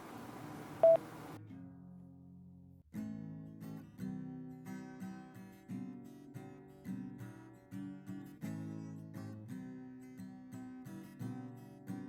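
Strummed acoustic guitar music: it starts softly and comes in fully with regular strums about three seconds in. Before it, about a second in, a short, loud beep sounds over background noise that then cuts off.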